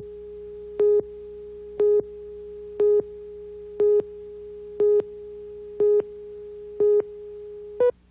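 Synthetic electronic beeping over a steady tone: a louder beep on the same pitch about once a second, nine in all, like a countdown. The last beep is higher and shorter, and the tone cuts off right after it.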